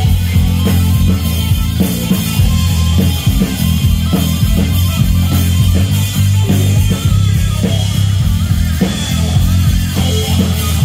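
Live rock band: an electric guitar solo over drums, with a heavy, steady low end.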